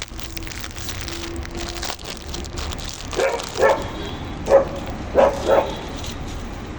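Dog barking: about five short barks in quick succession in the second half, over a steady background hiss.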